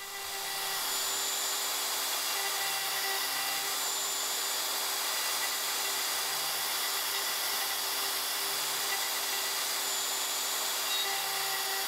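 Avid CNC router spindle running at speed while a 30-degree quarter-inch V-bit engraves inlay pockets into a wooden fingerboard blank: a steady high hiss and whine, fading in over the first second.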